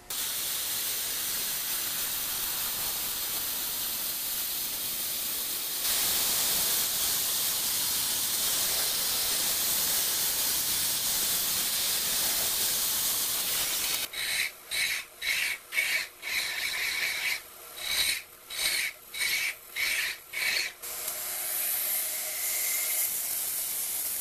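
A small lathe turning a square beech blank round, the cutter shaving the spinning wood with a steady hiss that grows louder about a quarter of the way in. Past the middle, the cutting breaks into a run of short bursts about half a second apart, then turns steady again near the end.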